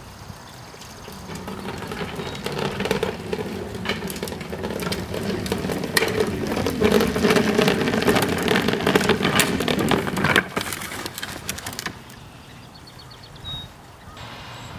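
Wheeled plastic garbage bin being rolled down an asphalt driveway, its wheels rumbling and the bin rattling with many small knocks. The noise builds over the first couple of seconds and stops sharply about two-thirds of the way through, when the bin is set down at the curb.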